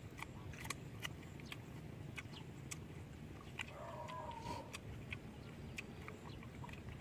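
Chopsticks clicking and tapping against ceramic rice bowls and a clay pot during a meal: scattered light clicks, a few every second. A faint, short wavering call sounds about four seconds in.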